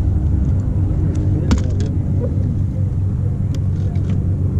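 Boat's electric trolling motor running with a steady low hum, with a few light clicks and knocks on the boat.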